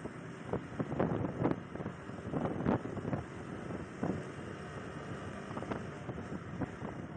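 Wind buffeting the microphone of a motorcycle on the move, in irregular gusts over a steady rush of riding noise.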